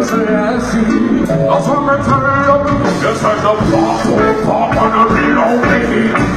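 Loud live concert music: a singer over a band with a steady beat.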